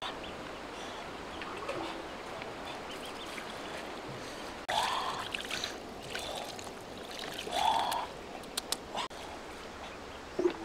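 Steady rush of flowing river water, with two brief calls about five and eight seconds in.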